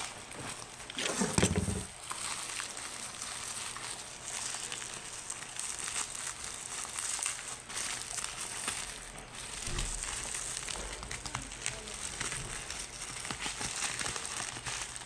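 Packaging crinkling and rustling as it is handled, with many small crackles, a louder thump about a second and a half in and a lighter knock near the ten-second mark.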